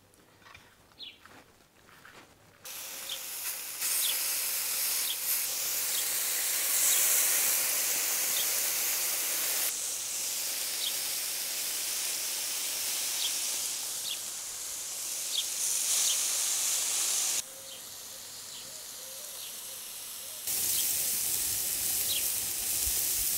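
Skewered meat sizzling on a charcoal grill: a steady hiss that starts a few seconds in, dips for a few seconds later on and comes back, with short high chirps over it.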